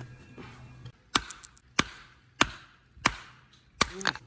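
A hammer striking a humped spider conch shell (Lambis truncata sebae) on stone paving five times at an even pace, about two-thirds of a second apart, cracking the shell apart.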